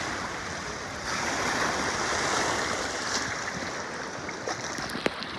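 Shallow sea surf washing and sloshing around a camera held at the water's surface, a steady dense rush of water, with one sharp tap about five seconds in.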